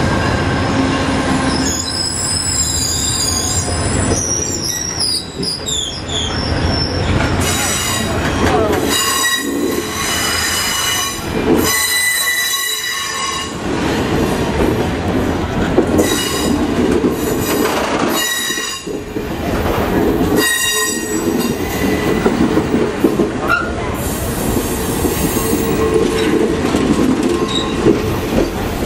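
Passenger train of stainless-steel cars rolling past close by, the wheels clattering over the rails with a sustained high squeal from the running gear. Gliding squeals are strongest in the first few seconds.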